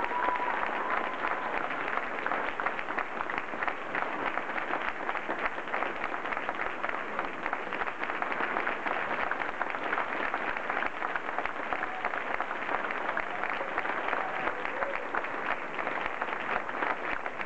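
Audience applauding steadily, with a few voices cheering over the clapping.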